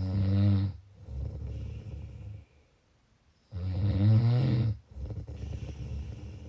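A person snoring: two snores about three and a half seconds apart, each a loud, low buzzing rumble lasting about a second, followed by a softer, breathy stretch of a second or two.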